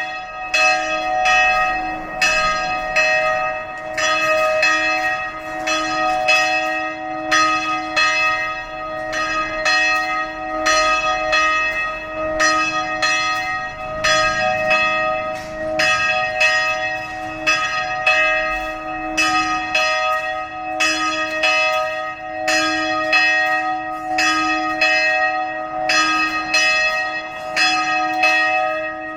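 Church bells ringing continuously: a rapid, unbroken series of strikes at about two a second, each note ringing on into the next so a steady hum sits beneath the strikes.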